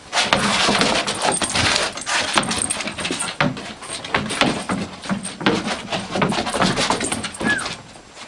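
A dog scrabbling and clattering, a dense run of short scratching and knocking noises, with a short high whine near the end.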